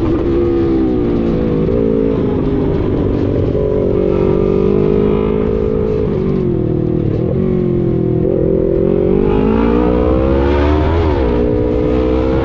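Sport motorcycle engine under way, heard from the rider's seat: its pitch climbs and drops back several times as the rider works the throttle and gears. A steady low rumble lies under it.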